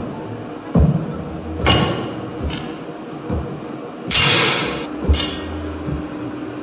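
Foley of rubber-boot footsteps and a shovel on a tray of soil, straw and gravel: several dull thuds and crunches, with a longer gritty scrape of the shovel blade about four seconds in and two short crunches about a second later.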